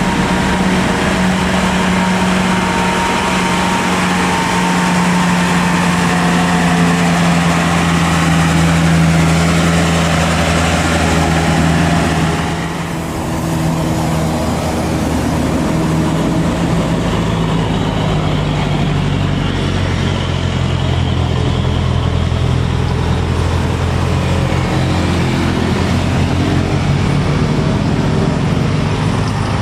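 Diesel engines of loaded Mitsubishi Fuso Canter light trucks labouring steadily up a hill: first a dump truck, then, after a break about 13 seconds in, a truck carrying a load of logs.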